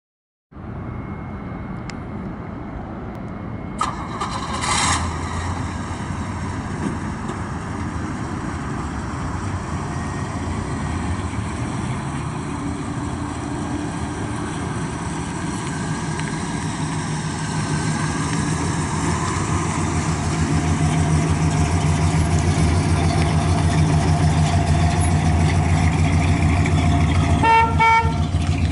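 1965 Pontiac GTO's 389 V8 with tri-power carburettors idling steadily, getting louder toward the rear of the car. A click and a brief burst of noise about four seconds in, and a few short horn-like beeps near the end.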